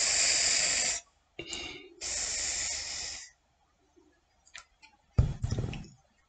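Aerosol can of Président whipped cream spraying in two hissing spurts of about a second each, with a short sputter between them. A short low thump follows near the end.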